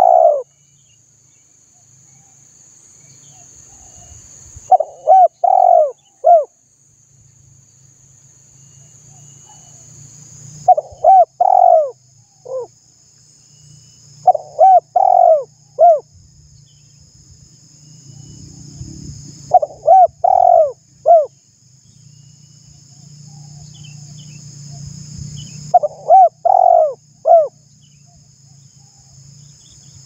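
Spotted dove cooing: a phrase of about four rounded coos, repeated five times at intervals of roughly five seconds, with a faint steady high hiss behind it.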